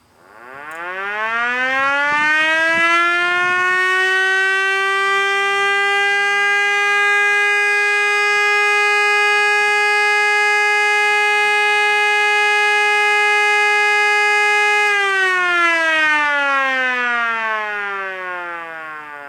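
A 12-volt siren sounding a steady alert for a noon test. It winds up over the first couple of seconds, holds one steady tone for about twelve seconds, then winds down, falling in pitch toward the end.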